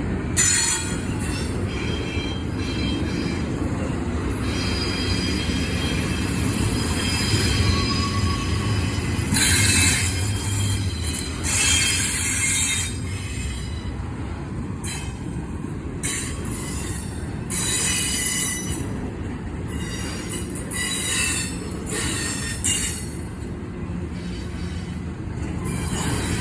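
CSX intermodal freight train cars rolling past: a steady rumble of wheels on rails, with high-pitched wheel squeal coming and going.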